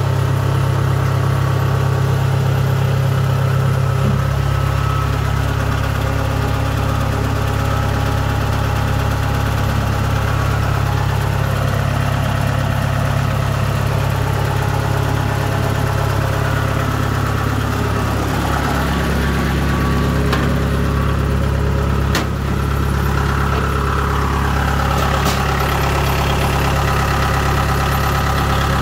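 Kubota DC-70G combine harvester's diesel engine running steadily.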